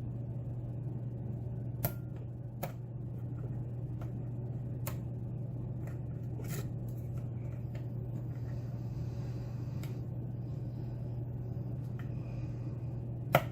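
Pick and tension tool working the pins of a pin-tumbler challenge lock during single-pin picking: a few faint, scattered metallic clicks, with a sharper click near the end as a pin sets, over a steady low hum.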